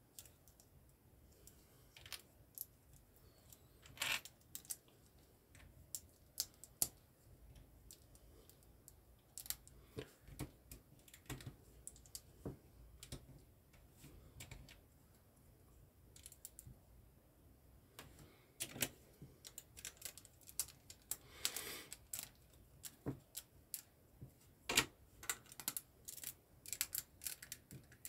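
Irregular light clicks and snaps of plastic LEGO bricks being handled and pressed together.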